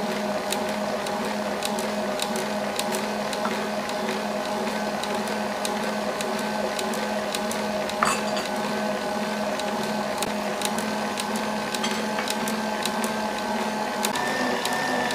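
Electric stand mixer running steadily, its balloon whisk beating cake batter in a steel bowl: a steady motor whine with light ticking. There is one sharp knock about eight seconds in, and the pitch steps up slightly near the end.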